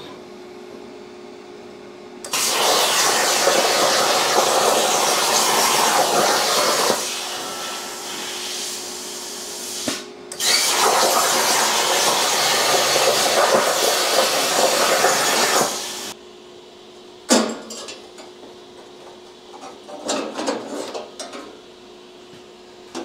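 Plasma cutter arc cutting 14-gauge steel sheet on a CNC plasma table: a loud, steady hiss that starts about two seconds in, eases for a few seconds, stops briefly, fires up again and cuts off sharply about sixteen seconds in. After it a sharp click, then light clinks of cut steel pieces being handled near the end.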